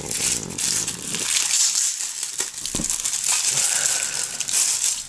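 Thin clear plastic packaging bag crinkling and rustling irregularly as hands handle it and open it to get the phone case out.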